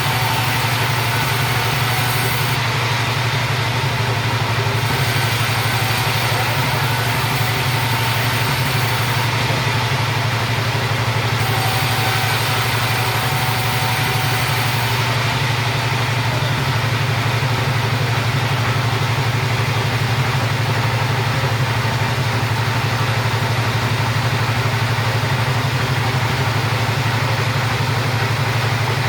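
Chainsaw engine running at a steady speed without a break.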